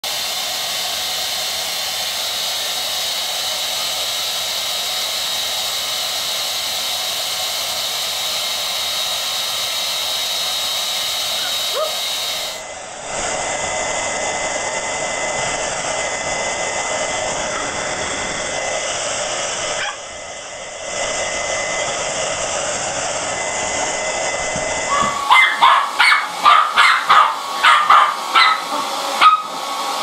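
Hand-held hair dryer blowing steadily, its hiss carrying a thin steady whine, with abrupt changes about 13 and 25 seconds in. Over the last five seconds a small dog barks and yaps rapidly at the dryer, about two barks a second.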